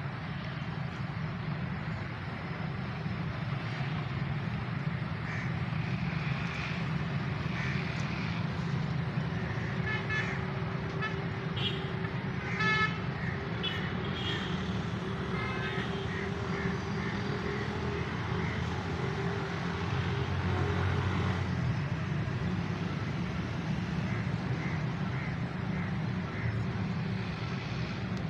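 Steady background road traffic rumble with vehicle horns sounding now and then, the loudest a short honk about halfway through.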